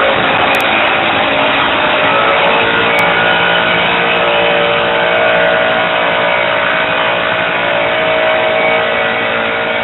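Aircraft engine and its propeller, mounted on the tray of a ute, running under throttle: a loud, steady drone with several held tones, fading slightly near the end as the ute drives off.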